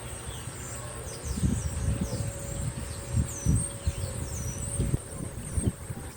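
Outdoor summer ambience. A steady high insect trill runs throughout, birds give short falling chirps, and wind buffets the microphone in irregular low thumps.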